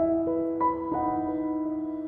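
Background music: a slow piano melody with held notes.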